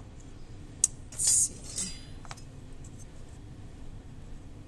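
A sharp click, then a short scraping clatter about a second in and another click a little later: a plastic cookie cutter being handled and set down on a wooden board while clay discs are tried in the cups.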